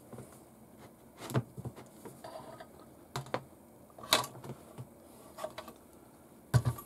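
Plastic and metal parts of a King Kong RC Q157 crawler chassis clicking and knocking as the chassis and axles are handled during suspension fitting. The clicks are scattered and irregular, the sharpest about a second in, around four seconds and near the end.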